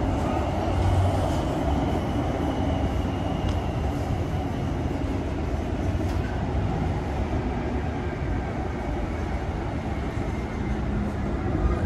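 Inside a Siemens SD660 light rail car running along the track: a steady rumble of wheels on rail and running gear, with a faint high whine that drifts slightly lower.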